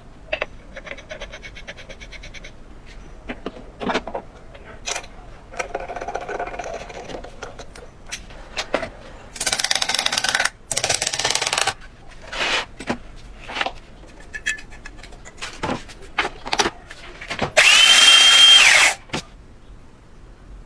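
A small electric power tool motor run in short bursts: twice briefly, then once more for over a second with a steady whine that spins up and winds down. Scattered clicks and knocks from handling metal parts come in between.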